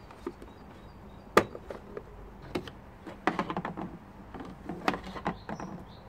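Plastic cover of a car's under-bonnet fuse box being unclipped and lifted off: a sharp snap about a second and a half in, then a run of quick plastic clicks and rattles.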